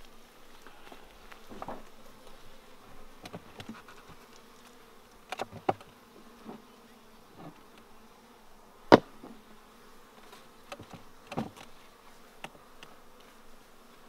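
Honeybees buzzing around an open hive in a faint steady hum, with a few sharp knocks and clicks from the hive equipment being handled; the loudest knock comes about nine seconds in.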